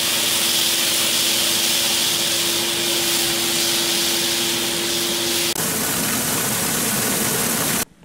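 Vacuum cleaner running with its hose down in a grain bin's center sump, sucking at soybeans to clear the hole that feeds the unload auger. A steady whine stops about five and a half seconds in and the sound turns rougher; it cuts off suddenly near the end.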